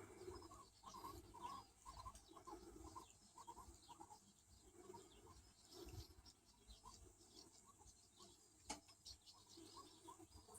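Guinea pig making faint, short, repeated squeaks, about two to three a second, with one sharp click late on.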